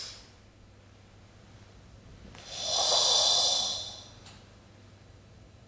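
A karateka's long, forceful breath, swelling and fading over about two seconds around the middle, as he settles into the ready stance.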